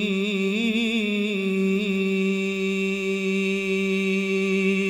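A single voice in Quranic recitation draws out the final word "ar-rahim" as a long melodic note. It wavers through ornamental turns for about the first two seconds, then holds one steady tone.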